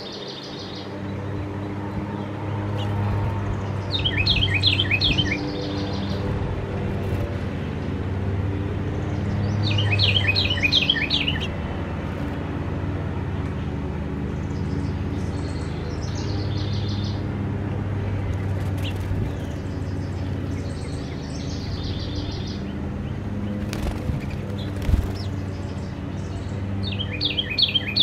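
Songbirds singing outdoors: three short phrases of quick, high, falling notes, roughly six seconds apart, with fainter chirping between them. A steady low hum runs underneath, and there is a single sharp click about 25 seconds in.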